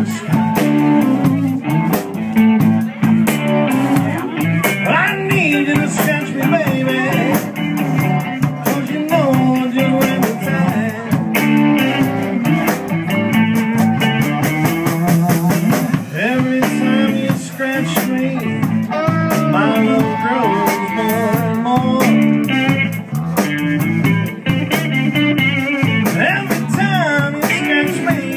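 Live band playing: electric guitar and electric bass over a drum kit, with a melodic line that bends up and down above them.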